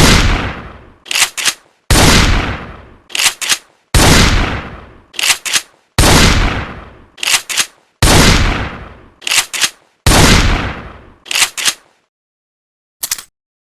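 Remington 870 pump-action shotgun firing six shots about two seconds apart, each followed by the click-clack of the slide being pumped to chamber the next shell. Near the end, a quick run of clicks as shells are loaded.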